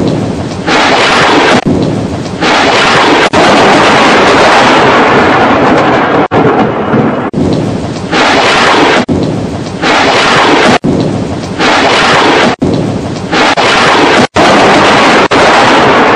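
Thunderstorm sound effect: thunder rumbling over rain in a run of loud surges, each cut off abruptly and restarted every second or two.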